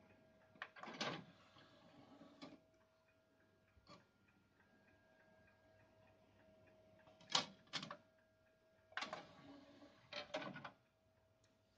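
Kenwood DPF-1010 CD player's motorised disc tray opening and later closing, each with a short whir and clunks, with two sharp clicks in between as a CD-R is set in the tray. A faint, regular ticking and a thin steady hum run underneath.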